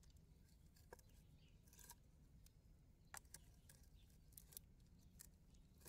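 Near silence, with a few faint, short clicks and scrapes of fingers handling and prying at a pearl-bearing shell.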